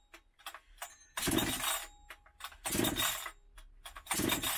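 Chainsaw being pull-started: three pulls of the recoil starter cord about a second and a half apart, each a short noisy burst, with the engine not yet running between them.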